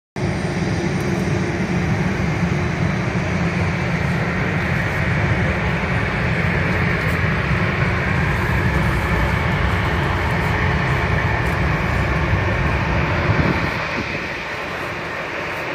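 Airbus A380's four jet engines at takeoff power as the heavy airliner rolls down the runway: a loud, steady roar, heavy in deep rumble. The sound eases slightly near the end.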